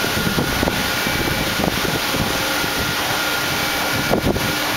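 Steady machine-shop noise: a constant hiss and hum with a faint steady whine, and a few light knocks, the clearest about four seconds in.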